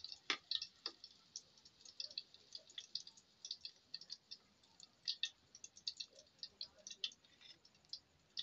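Hot cooking oil crackling and popping irregularly in a wok as banana blossom fritters fry, with one sharper click just after the start.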